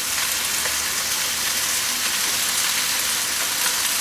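Chopped bacon sizzling in a frying pan of hot oil, a steady hiss, freshly added and starting to fry.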